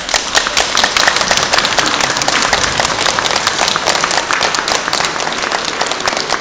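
Audience applauding: many hands clapping together at a loud, even level.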